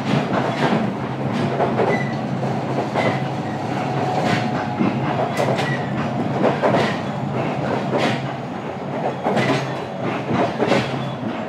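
JR Kyushu 817 series electric train running between stations, heard from inside a KuMoHa 817 motor car. A steady running hum carries irregular clacks of the wheels over rail joints.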